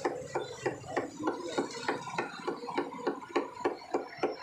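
A butcher's cleaver chopping mutton into mince on a wooden log block, a steady run of blows at about three a second.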